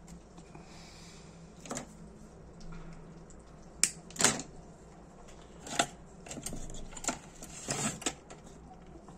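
Small metal parts of a disassembled Dunhill Rollagas lighter being handled on a workbench: a series of irregular sharp clicks and taps, about six, the loudest about four seconds in.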